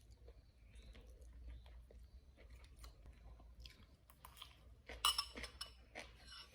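Someone eating fried rice vermicelli: soft chewing with light clinks of cutlery against a plate. A louder cluster of clinks comes about five seconds in.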